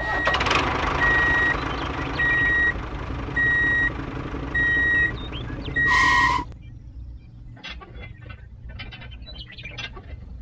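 Reversing alarm beeping five times, about once a second, over a steady engine-like drone as a small DIY toy tractor backs up to its implement. It cuts off after a louder final burst about six and a half seconds in, leaving faint clicks and taps of small metal parts being handled.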